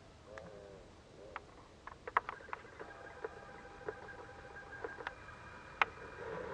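Handling noise from a camera: scattered sharp clicks and taps, with a faint steady whine of several pitches from about three seconds in until near the end.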